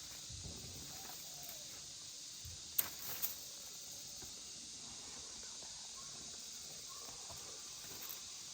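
Quiet field ambience: a faint steady high-pitched hiss, with two short sharp clicks close together about three seconds in.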